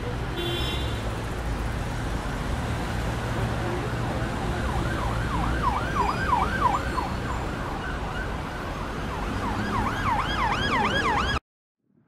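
Steady low rumble of street traffic. About five seconds in, an emergency vehicle siren starts in a fast yelp, its pitch sweeping up and down several times a second; it comes back louder near the end. The sound then cuts off suddenly.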